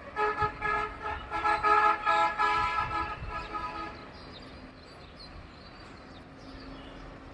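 Vehicle horn honking in a rapid series of short blasts at one pitch for about four seconds, then street noise.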